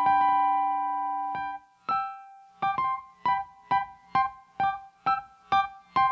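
Piano playing high notes: a fast repeated figure rings on and fades, then after a short pause single high notes are struck evenly, about two a second.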